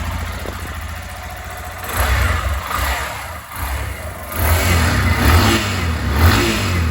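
Yamaha Lander 250's single-cylinder engine idling, then revved in throttle blips about two seconds in and again from about four and a half seconds. It has just been rebuilt with a new connecting rod, crank pin and bearings, and runs smooth.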